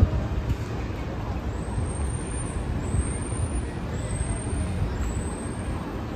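Street ambience: a steady low rumble of road traffic, with a brief louder swell at the very start.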